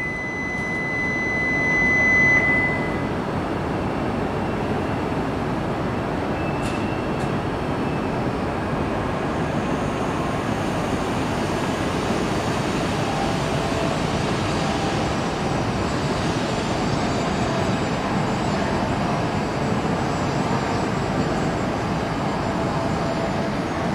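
E5 series Shinkansen train departing the station, its cars running past with a steady noise that holds even as the train pulls away. A steady high electronic beep sounds over it for the first two seconds or so, then stops.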